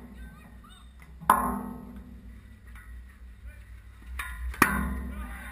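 Sharp metallic knocks on the hockey goal's metal frame, each ringing on for about a second. There is one about a second in, then two close together near the end, over a steady low rumble.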